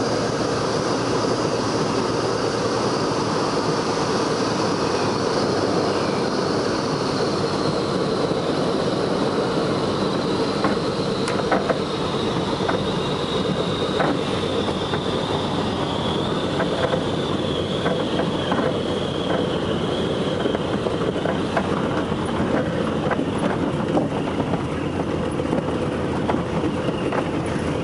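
Twin de Havilland Gipsy six-cylinder engines and propellers of a de Havilland Dragon Rapide biplane, heard from inside the cabin as a steady din with a high whine slowly falling in pitch as the engines throttle back for landing. From about ten seconds in come scattered knocks and rattles as the biplane rolls over the bumpy grass runway.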